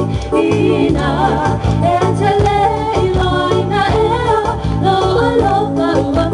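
Samoan dance song: voices singing a wavering melody over a steady bass line, accompanying the group dance.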